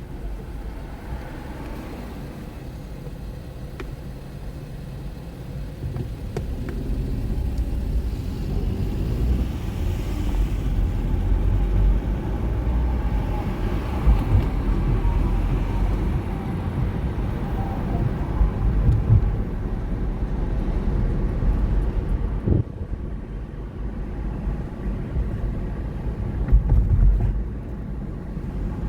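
Car driving: steady engine and road rumble, getting louder about six seconds in. A short knock is heard a little after two-thirds of the way through.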